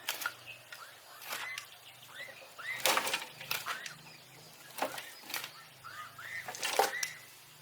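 A hand tool striking and scraping at earth in about eight irregular strokes, with small birds or chicks chirping between them.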